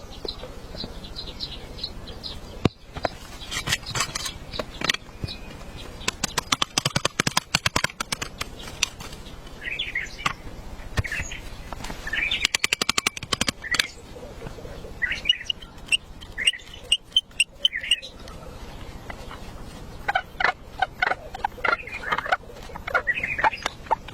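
Rain tapping on a tent, in irregular runs of fast sharp taps, with short high chirping calls several times.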